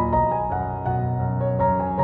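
Background music: a keyboard melody of evenly paced notes over held low bass notes.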